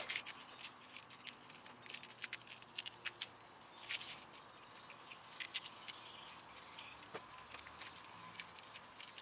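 Plastic wire loom being handled and pushed around a bundle of wires: a scatter of short, irregular plastic clicks and crackles.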